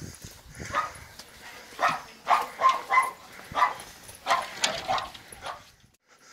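A dog barking, about ten short barks in quick uneven runs that stop shortly before the end.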